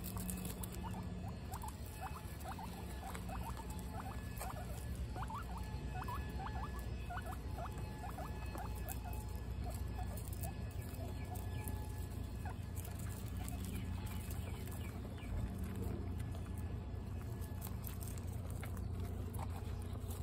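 Guinea pigs crunching and chewing hard pellets from their bowls, a dense, fast patter of little crunches, with many short chirps through the first half.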